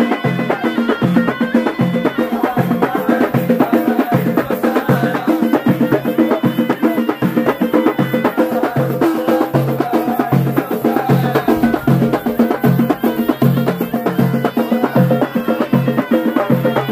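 Amazigh wedding music: hand-held frame drums beaten in a steady rhythm, about two strokes a second, under a wavering melody from a ghaita reed pipe.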